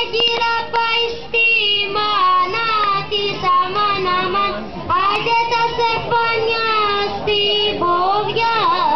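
Children singing a traditional Greek folk song, a melody that glides and bends continuously.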